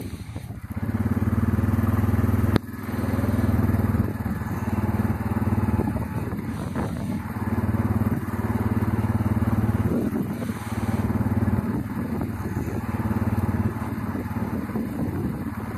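Honda Foreman ATV's single-cylinder four-stroke engine running under way, its level easing off and coming back several times as the throttle changes. A sharp click comes about two and a half seconds in.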